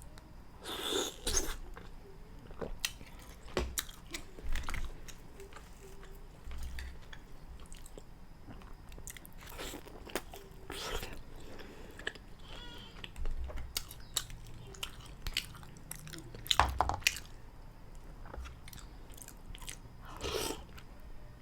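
A person eating mussels close to the microphone, with irregular chewing, biting and wet mouth clicks.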